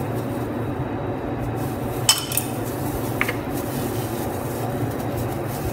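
Kitchen dishes clink once sharply about two seconds in, with a lighter tick about a second later, over a steady low hum.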